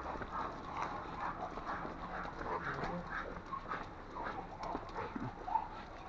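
Several leashed dogs trotting on pavement: a quick, uneven patter of paws and claws tapping the ground.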